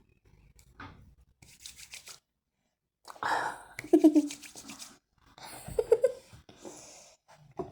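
Wet squishing and squelching from a punctured squishy toy being squeezed, in several short bursts with pauses between.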